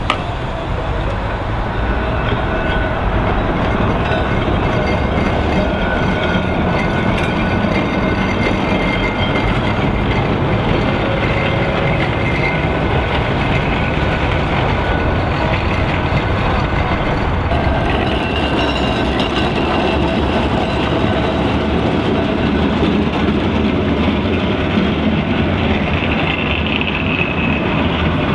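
Blackpool heritage trams running along the promenade street track: a steady rumble of steel wheels on rail, with faint high tones that come and go.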